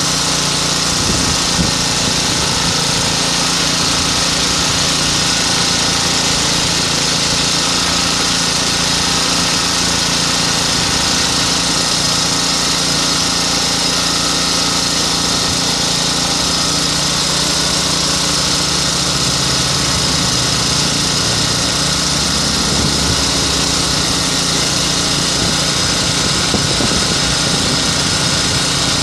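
Small Chinese electricity generator's engine running steadily at an even speed.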